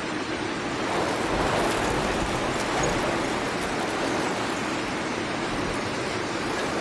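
Muddy floodwater rushing past in a fast torrent: a steady, dense rushing noise that keeps the same level throughout.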